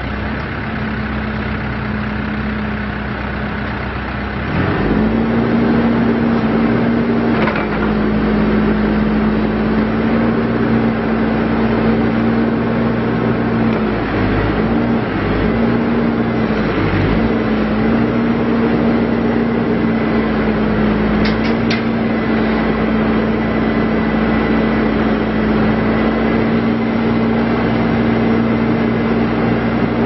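Case 580SM Series II backhoe loader's four-cylinder diesel engine idling, then throttled up about four seconds in and running steadily higher while it powers the hydraulics for the stabilizers and backhoe boom. Its pitch sags briefly twice a little before the middle, and a couple of short clicks come soon after.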